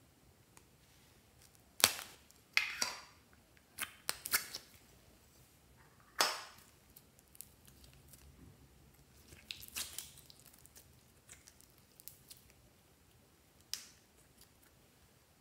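Small plastic containers snapped open and handled: a series of sharp clicks and pops, the loudest about two seconds in and again about six seconds in, with a quicker run of small clicks near the ten-second mark.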